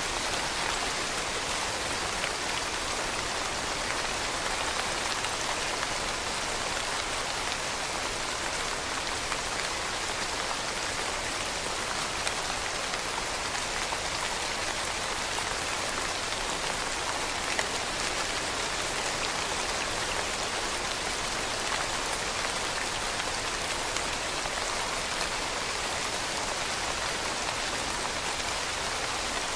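Steady rain falling on leaves: an even, unbroken patter with a few separate drops ticking through it.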